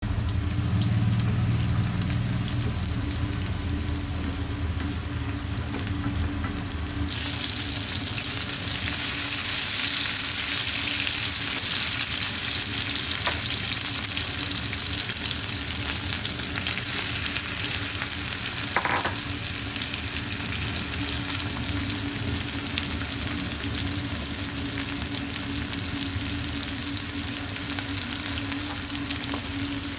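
Food frying and sizzling in a pan while being stirred. The sizzle turns suddenly louder and hissier about seven seconds in, over a steady low hum.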